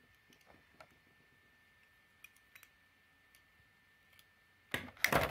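Small plastic Beyblade parts handled in the fingers, giving a few faint scattered clicks, then a louder burst of plastic clicking and clatter near the end.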